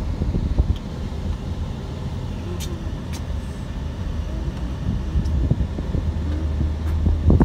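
Steady low rumble of road and engine noise inside a moving car's cabin, with a few faint ticks and a louder bump near the end.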